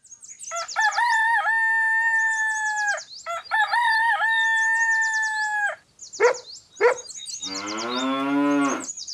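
A rooster crowing twice, each crow long and steady, over constant high bird chirping. Near the end come two short calls and then a lower, drawn-out animal call.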